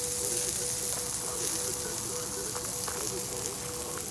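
Burger patties sizzling on GrillGrates over a small Weber kettle grill: a steady hiss with scattered small crackles of fat. A faint steady tone and faint music run underneath.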